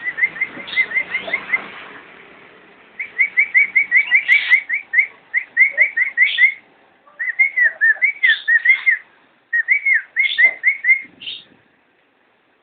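Lovebirds chirping: fast runs of short, high, repeated chirps, several a second, in four bouts with brief pauses between.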